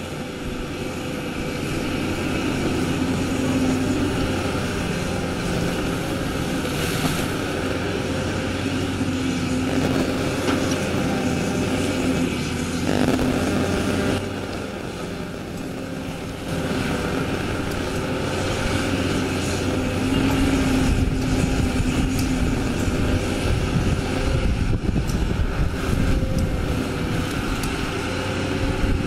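Caterpillar 320D hydraulic excavator's diesel engine running steadily under load while the machine digs and swings its bucket, easing off briefly about halfway through.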